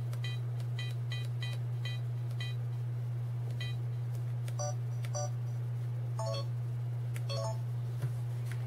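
Sony Cyber-shot DSC-H300 camera beeping as its menu buttons are pressed. There is a quick run of short high beeps in the first couple of seconds, then a few lower-pitched beeps later on, over a steady low hum.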